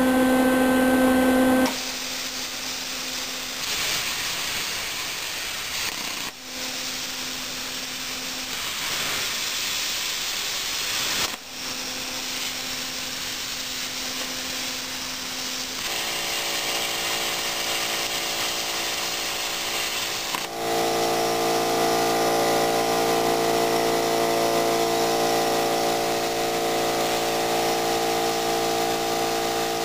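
Thermal Dynamics Pakmaster 50XL air plasma cutter cutting quarter-inch steel angle iron: a steady hiss of the arc and air, breaking off briefly twice. A steady hum of several tones joins about 16 seconds in and gets louder around 21 seconds in.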